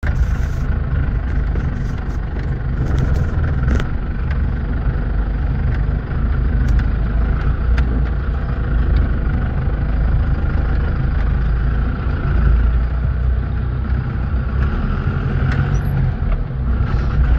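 Off-road vehicle's engine running at low trail speed with a steady low rumble, over a rough dirt trail, with a few short knocks and rattles from the bumpy ground.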